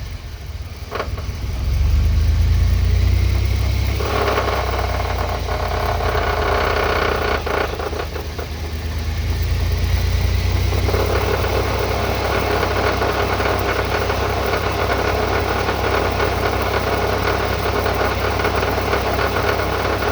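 Truck drivetrain turning under light throttle, with a steady low engine rumble and a rough grinding noise that comes in about four seconds in, eases for a few seconds and returns, then holds steady. The grinding is the noise the owner believes comes from the shaved GM 14-bolt rear axle.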